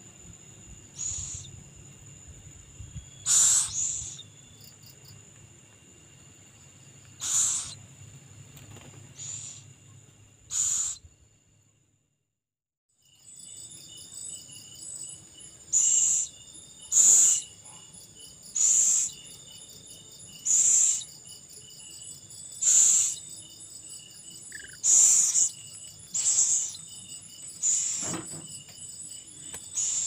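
An owl chick gives short, rasping begging calls, one every one to two seconds, over a steady high drone of night insects. The sound cuts out completely for about a second near the middle.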